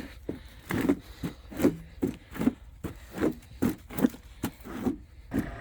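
Footsteps of boots walking on wet, muddy clay ground: an even run of scuffing steps, about two to three a second.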